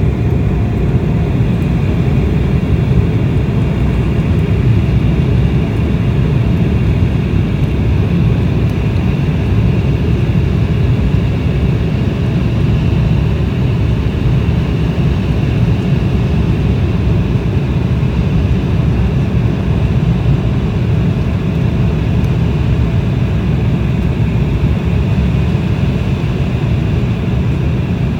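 Cabin noise inside an Embraer 190 descending on approach: the steady low rumble of its GE CF34 turbofan engines and the airflow over the fuselage, with a faint higher whine above it.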